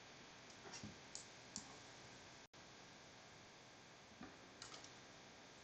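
Near-silent room tone with a few faint, scattered clicks from computer use, such as mouse clicks or key presses.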